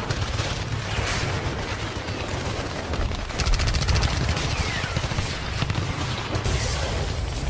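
Battle gunfire: a continuous crackle of many rifle shots over a low rumble, with a rapid machine-gun burst about three and a half seconds in.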